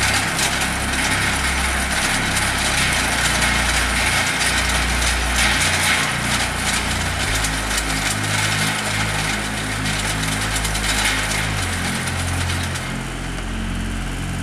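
Tractor engine running steadily while driving a Verti-Drain deep-tine aerator that punches holes in the stadium turf. The noise drops somewhat near the end.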